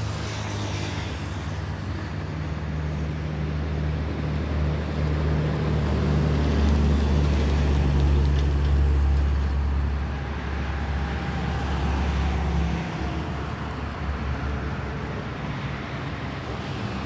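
Steady low engine rumble that drops away about thirteen seconds in, with a faint higher whine coming up in the second half.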